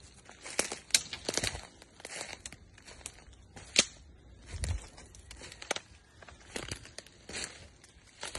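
Footsteps through dry leaf litter and undergrowth: irregular crunching and crackling of leaves, twigs snapping underfoot, and thin branches brushing past. The sharpest twig crack comes about four seconds in.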